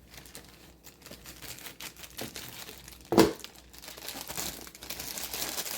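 Packaging crinkling and tearing as it is pulled open by hand, with one short loud sound about three seconds in. The crackling thickens near the end.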